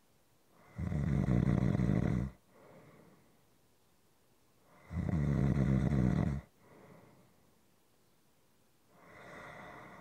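Slow, steady snoring: two loud snores, each about a second and a half long and about four seconds apart, each followed by a soft breath out, then a quieter third snore starting near the end.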